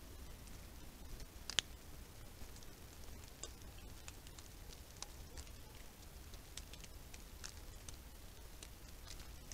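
Faint, scattered ticks and crackles over a steady low hiss, with one sharper click about a second and a half in.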